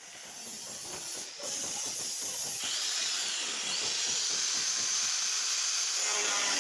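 Angle grinder with a cutting disc cutting stainless-steel sheet: a steady hiss that builds up over the first second or so, with a whine that dips and rises about three seconds in.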